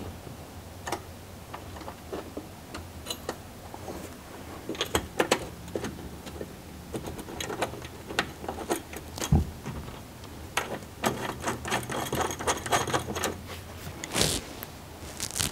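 Scattered small metallic clicks and clinks of bolts and a steel bracket being handled on a steel drawer slide, with a quicker run of ticking about eleven seconds in and two sharper knocks near the end.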